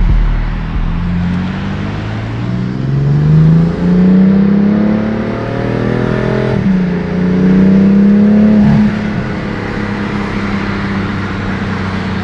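Car engine accelerating hard, its pitch climbing, then dropping sharply at an upshift about six and a half seconds in and climbing again. About nine seconds in it eases off to a steady, quieter drone.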